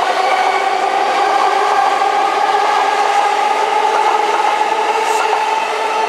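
Keihin-Tohoku Line E233 series electric train accelerating away from the platform, its traction motors giving a steady whine that rises slowly in pitch over running noise.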